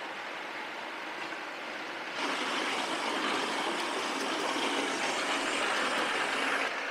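Steady machinery noise, a rushing sound with no clear pitch, that grows louder about two seconds in and drops back just before the end.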